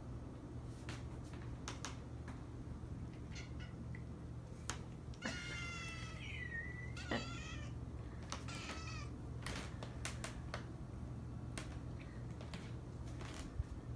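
Domestic cat meowing several times in high-pitched calls: the longest a little after five seconds in, then shorter ones, among scattered light clicks.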